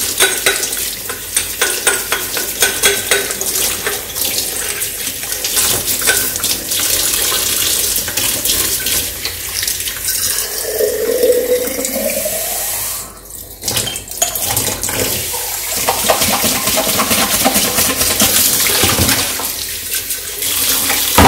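Water running from a tap into a stainless steel sink while plastic baby bottles are rinsed and scrubbed with a bottle brush, with small clatters of plastic. About ten seconds in, a rising note as a bottle fills under the stream, and the flow sound drops out briefly a little later.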